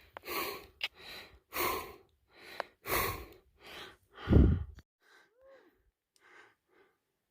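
A hiker's heavy breathing while climbing hard at high altitude: a run of deep, rapid breaths, the loudest about four and a half seconds in, then fainter breaths.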